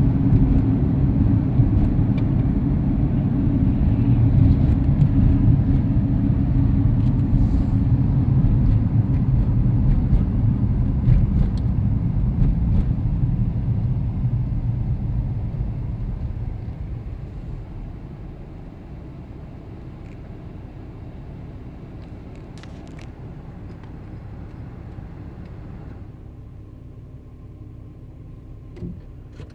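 A car's engine and road rumble, loud and steady, fading away after about fifteen seconds to a quieter, steady low rumble.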